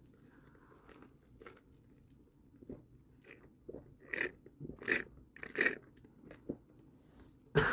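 Drinking an iced drink through a straw from a clear plastic cup: a string of short crackly bursts of straw and ice noise, three louder ones about two-thirds of a second apart, then one sharp louder sound near the end.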